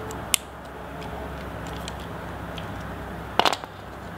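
Small hand-tool handling: a single sharp click about a third of a second in, then a short clatter of clicks near the end, as a bit screwdriver is worked on the screws of a Spyderco Dragonfly 2 folding knife.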